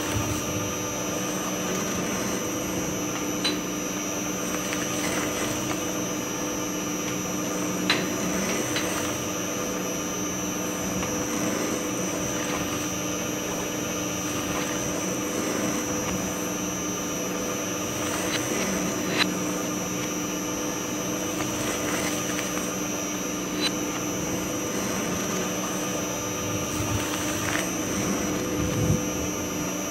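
Twin-shaft shredder running steadily, a constant machine hum with a high whine over it. About five sharp knocks are spread through it as rubber balls drop onto and bounce on the turning cutters.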